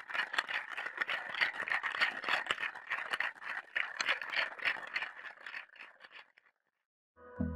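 A dog chewing, a fast irregular run of crunching clicks that stops about six seconds in.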